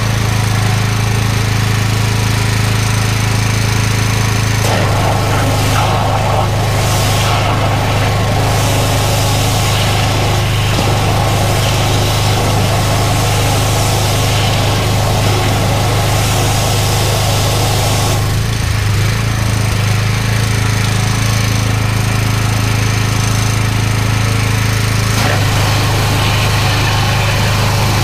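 Engine of a drain jetting machine running steadily. From about five to about eighteen seconds in, a broad rushing hiss of high-pressure water is added as the jet blasts through the drain pipe.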